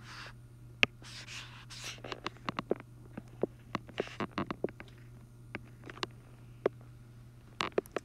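Stylus tapping and scraping on an iPad's glass screen as small marks are drawn: a scattered string of light ticks and a few short scrapes, over a steady low hum.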